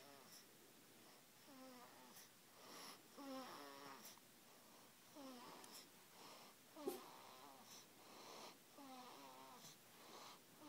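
Newborn baby snoring faintly in her sleep: short, pitched, squeaky breaths, about one every second.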